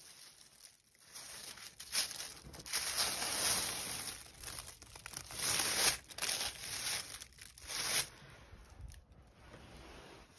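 A quilted sleeping bag and blankets being shifted and handled, rustling and crinkling against a foil emergency blanket in irregular bursts that die down after about eight seconds.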